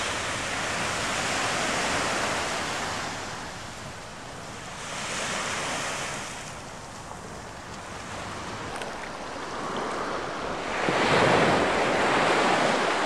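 Ocean surf washing onto a beach, swelling and fading every few seconds, with wind rumbling on the microphone; the loudest surge comes near the end.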